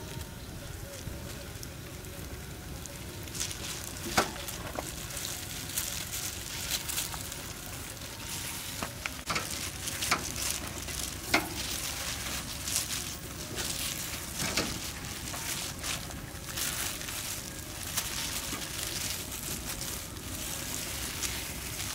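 Wood fire crackling and hissing under a metal grill grate, with cow's feet sizzling as they singe over the flames. Sharp pops break through every few seconds over the steady hiss.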